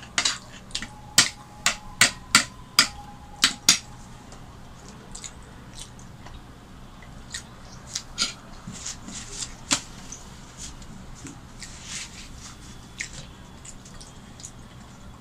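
A metal spoon clinking against a steel bowl about eight times in quick succession over the first four seconds, with a faint ringing between strikes. After that come softer, scattered clicks and mouth sounds of eating paratha.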